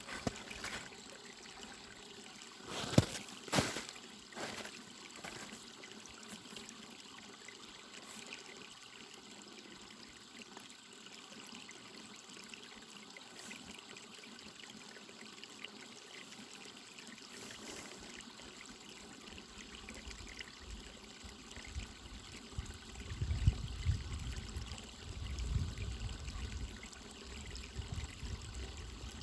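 Small mountain stream trickling steadily over stones. A few sharp knocks come about three seconds in, and low rumbling thuds near the end.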